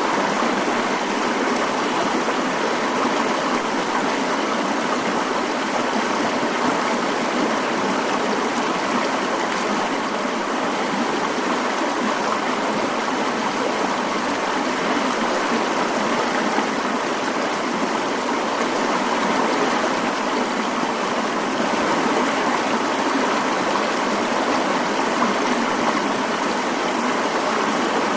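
Mountain stream flowing steadily: an even, unbroken rush of water.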